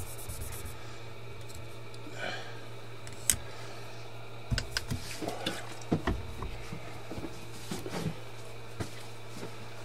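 A steady low electrical hum, with a few light clicks and low knocks of handling at the workbench; the sharpest click comes about three seconds in.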